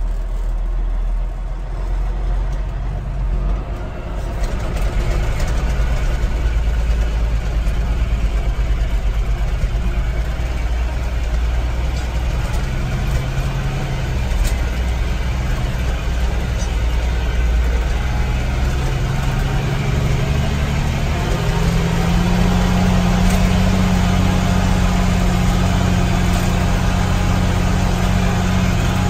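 A heavy vehicle's engine running steadily, heard from inside its cab while driving. About four seconds in it grows louder and fuller, and about two-thirds of the way through its pitch steps up and holds.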